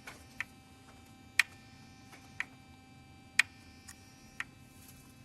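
Cleaned exhaust VVT oil control valve (CVVT solenoid) of a Hyundai 1.6 MPI being switched on and off, its plunger clicking about once a second, alternating louder and softer clicks, over a faint steady hum. The valve is moving freely and working after its clogged filter was cleaned.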